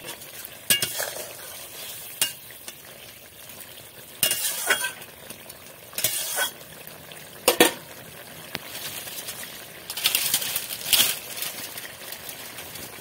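Ridge gourd and fish curry sizzling and bubbling in a metal kadai, with a metal spatula stirring it and scraping and clinking against the pan in irregular strokes.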